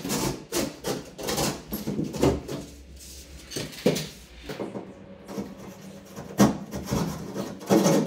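Hand tool scraping and rubbing against gypsum board in irregular strokes. The strokes come close together for the first couple of seconds, then as a few separate strokes.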